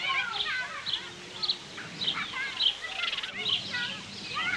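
Many children playing outdoors, their voices calling and shouting over one another, with birds chirping.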